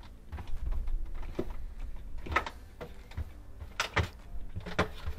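A plastic refrigerator interior panel being slid back into place by hand: a few separate knocks and scrapes of plastic, the loudest about halfway through and a small cluster near the end.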